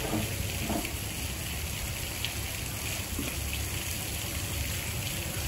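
Steady rush of running water, an even hiss with no clear events.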